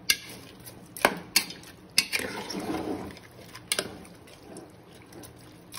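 A metal spoon stirring a wet mixture of minced meat, chana dal and water in a pressure cooker: a soft sloshing swish, with about five sharp clinks of the spoon against the pot.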